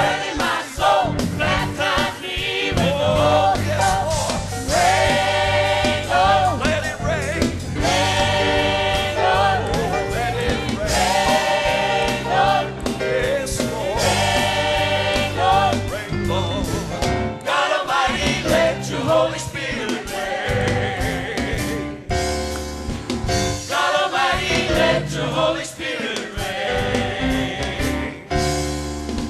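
Gospel choir singing live, many voices holding long wavering notes together.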